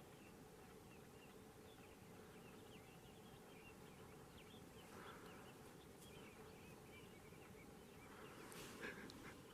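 Near silence: faint outdoor ambience with scattered small high chirps in the first half and a soft rustle near the end.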